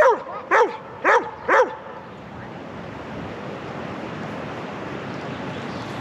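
A dog barking four times in quick succession, short yipping barks that rise and fall in pitch, over the first two seconds. After that comes a steady rushing noise.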